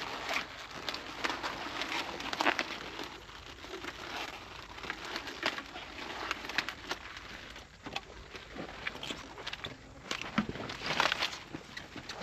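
Collard green leaves being snapped off their stalks and handled: irregular crisp snaps and crackles over leafy rustling.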